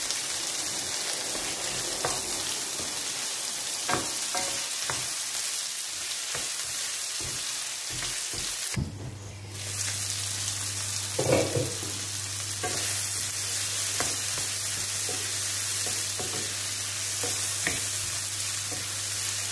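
Chicken pieces with sliced onion and garlic sizzling in oil in a frying pan, stirred with a wooden spatula that scrapes and knocks against the pan now and then. A steady low hum comes in about halfway through.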